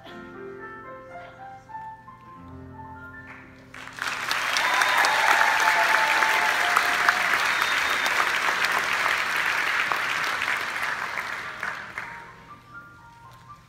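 Piano playing the held closing notes of a song, then an audience applauding loudly from about four seconds in; the applause fades after about eight seconds as the piano begins playing again.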